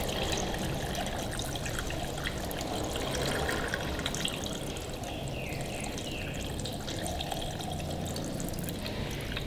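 Demineralized water being poured into a car's cooling system, trickling steadily as it fills.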